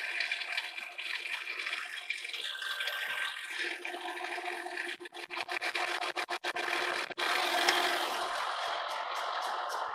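Horizontal boring mill taking a facing cut on the end of a welded steel column with a single-point fly cutter, a steady scraping cutting noise. About halfway through the sound breaks up into short gaps, and near the end it turns into an even pulse of about four a second.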